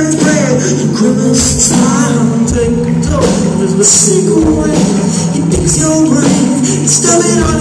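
A loud live band playing a song, with a voice singing over drums and bright, jingling high percussion, as recorded from the front of a concert crowd.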